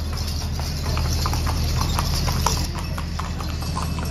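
A horse's hooves clip-clopping at a walk on brick paving, a few irregular steps a second, over a steady low hum.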